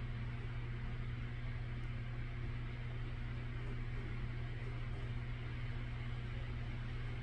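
A steady low machine hum under a constant hiss, unchanging throughout.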